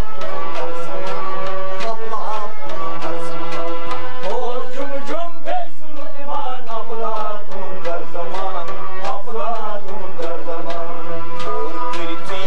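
Live South Asian folk music: a harmonium holds sustained chords under a man's singing voice, with stringed instruments and quick hand-drum strokes in a steady rhythm.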